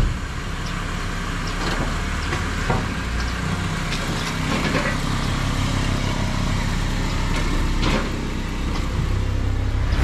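Honda sedan's engine running at idle, a steady low hum, with a few light knocks over it.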